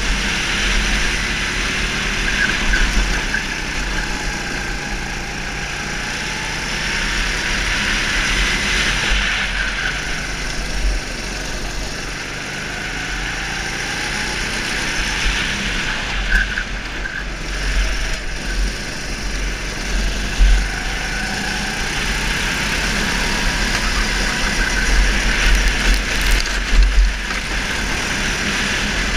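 Go-kart engine heard from on board, its pitch rising and falling as the kart accelerates and slows, under heavy wind buffeting on the microphone. A few sudden loud knocks come in the later part.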